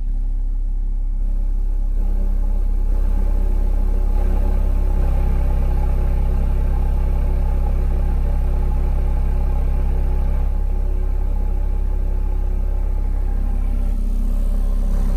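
6.5-inch subwoofer in a ported box, driven by a Boss Riot 1100M monoblock amplifier, playing a steady 33 Hz test tone at the box's tuning frequency. It grows louder in steps over the first few seconds as the volume is turned up. The amplifier is driven into clipping at about 140 watts, so the low tone carries distortion.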